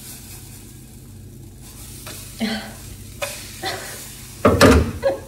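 Banana pancake batter sizzling in a non-stick frying pan over a gas burner, with a few short scrapes as it is worked in the pan and a loud clatter of the pan near the end.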